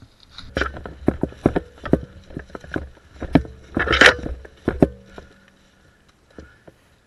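Running footsteps crunching through dry fallen leaves, about two steps a second, with the loudest crunch about four seconds in. The steps stop about five seconds in.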